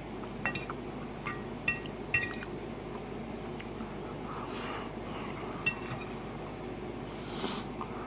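Eating utensil clinking against a dish of chili: about five sharp, ringing clinks, four in quick succession in the first two seconds and one more later, over a steady low hum.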